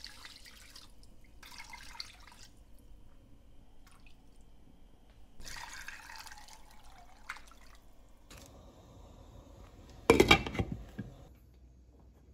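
Water poured from a glass measuring cup into a pot of beef in chile sauce, splashing in a few pours. About ten seconds in, a loud clatter as a glass lid is set on the pot.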